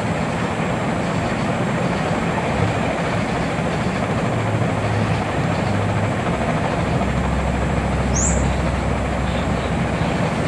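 Steady loud noise with a low hum, and a brief high rising chirp about eight seconds in.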